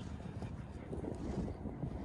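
Wind buffeting the microphone: a steady, low rumbling noise with no distinct events.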